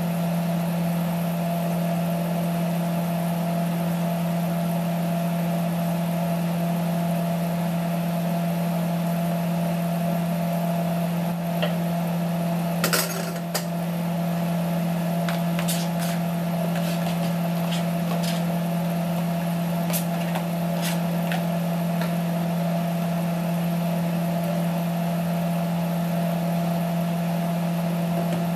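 A steady low motor hum runs throughout. About thirteen seconds in, chopped vegetables are tipped from a tray into the pot with a brief clatter, followed by a few light knocks.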